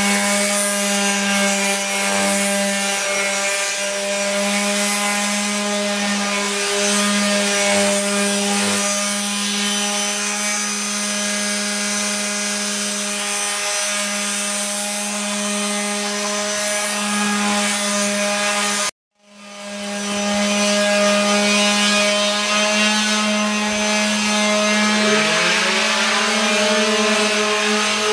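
Electric palm sander with 120-grit paper running against a textured plaster wall: a steady motor hum with the rasp of the paper. It cuts out for an instant about two-thirds through, and near the end a second motor pitch rises in beside it.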